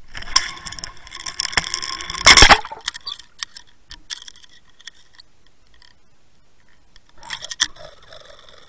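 Underwater camera plunging into the water and sinking: water rushing and bubbling against the camera housing with many sharp clicks, loudest about two seconds in. Scattered faint clicks follow, and a second short rush of water comes near the end.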